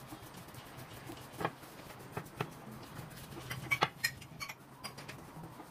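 Scattered light clicks and taps of a wooden rolling pin and hands working a thin sheet of dough on a silicone mat, busiest a little past halfway with a few brief clinks.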